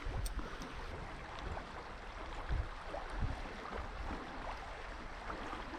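Wind buffeting the microphone in uneven low puffs over the steady rush of a shallow, rocky river.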